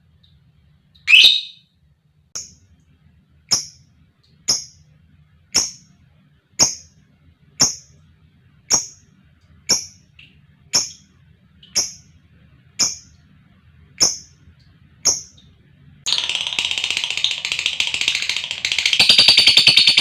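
Lovebird calling: one loud shrill call about a second in, then short sharp high chirps about once a second. From about sixteen seconds in it breaks into a continuous rapid high chatter, the long 'ngekek' trill, which grows louder near the end.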